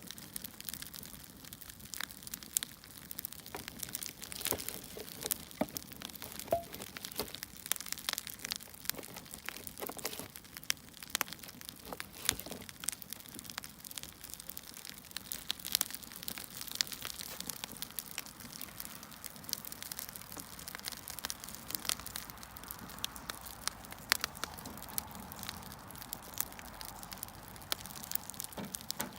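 Wood fire crackling: burning firewood giving off irregular sharp snaps over a faint hiss.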